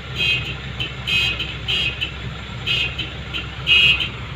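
Dump truck engine running with a steady low rumble, with short high-pitched chirps breaking in about once a second.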